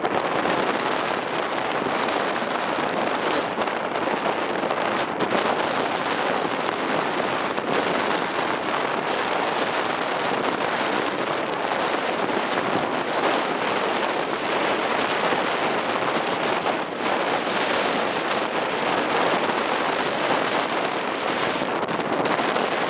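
Strong wind rushing over the microphone aboard a moving ferry, a steady dense noise with no let-up.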